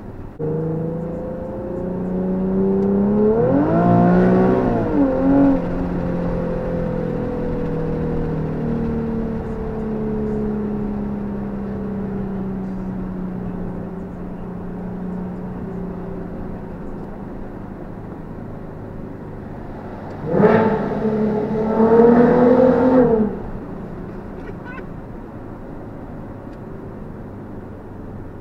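Nissan 370Z's 3.7-litre V6 with a custom exhaust, heard from inside the cabin while driving. It climbs in pitch about four seconds in, then drones with its pitch sliding slowly down. About twenty seconds in it revs hard for a few seconds, getting louder, before dropping back sharply.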